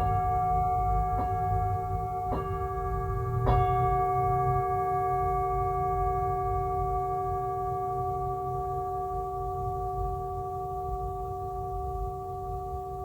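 Singing bowl struck four times within about three and a half seconds, its tones ringing on and slowly fading, with a slight wavering in one tone. A low steady hum lies underneath.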